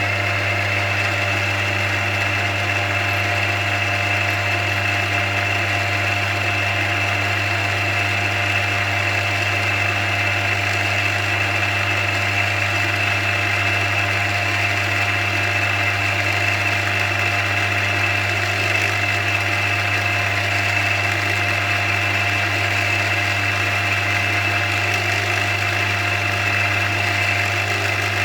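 Milling machine running steadily at its fastest spindle speed, with a steady hum and high whine, while a small end mill pecks into a snapped optic-mount screw in a steel pistol slide.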